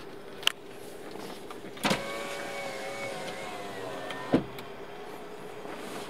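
A car's power window motor whining for about two seconds, with a click as it starts and a louder clunk as it stops. A steady faint hum runs underneath.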